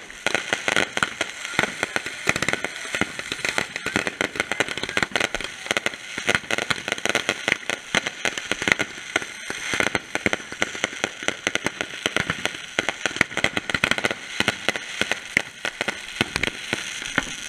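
Consumer fireworks crackling and popping: many rapid small bangs and crackles overlapping without a break.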